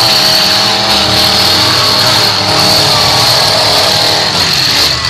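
Several demolition derby cars' engines running and revving together as the cars push against one another, with a steady high-pitched whine over them.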